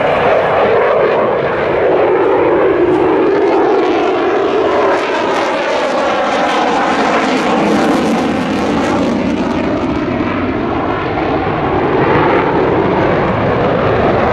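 Loud jet noise from a Mitsubishi F-2 fighter's single F110 turbofan engine during a display flight. The pitch of the noise sinks over the first few seconds and rises again near the end.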